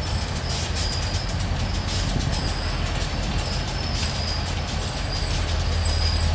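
Diesel-hauled mixed freight train rolling past: a steady low rumble with repeated clicks of wheels over the rails and thin high-pitched squeals on and off.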